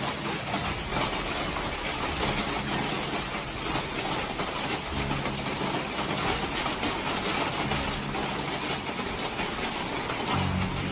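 Heavy hail and rain pelting down, a dense, steady hiss of hailstones striking the ground and nearby surfaces.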